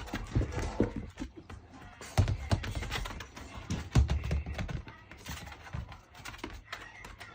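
Irregular thumps and light clicks of a Shiba Inu puppy scrambling and playing with a toy, with heavy thumps about two and four seconds in, over background music.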